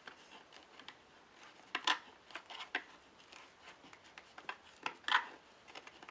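Plastic parts of a cheap single-serve coffee maker being handled, a few light clicks and rubs as the drip catch is worked.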